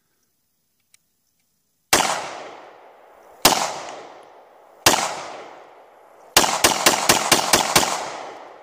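Beretta 92FS 9mm pistol firing ten shots: three deliberate shots about a second and a half apart, then seven in a quick string of about four a second, each trailing off in a long echo. The pistol runs through the whole magazine without a stoppage after being dropped in sand and dirt.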